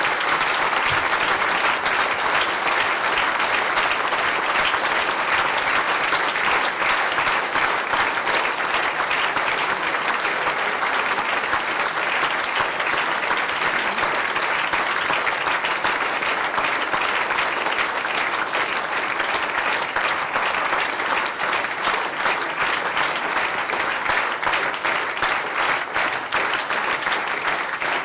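Audience applauding steadily for a long stretch, a dense clatter of many hands that loosens slightly near the end, with single claps standing out more.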